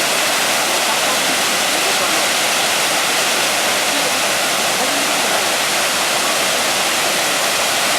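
Waterfall swollen with floodwater after typhoon rains, pouring heavily: a loud, steady, unbroken rush of water.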